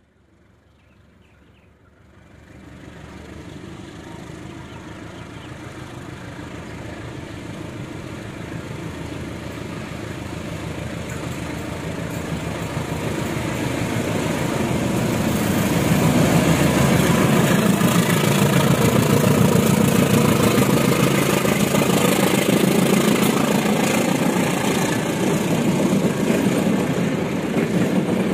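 CC201 diesel-electric locomotive hauling a passenger train, its engine rising from faint to loud as it approaches and passes, loudest from about halfway through. Its coaches are rolling past on the rails near the end.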